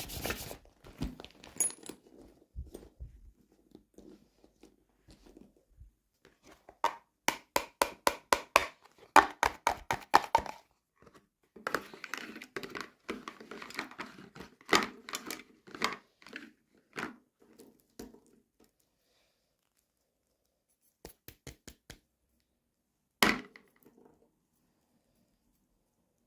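Hands unwrapping and handling plastic toy packaging: crinkling and rustling broken by runs of quick clicks and taps, with a single sharp click near the end.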